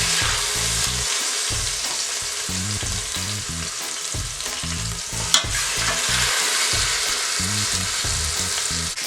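Seasoned red snapper frying in hot oil in an Instant Pot on its sauté setting: a steady sizzle, with one sharp click a little past the middle.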